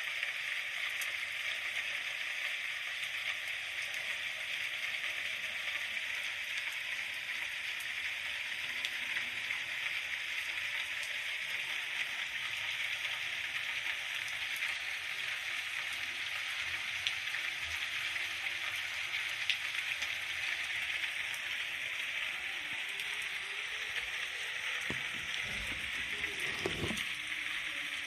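Steady rain falling, an even hiss with no let-up. A brief low rumble comes near the end.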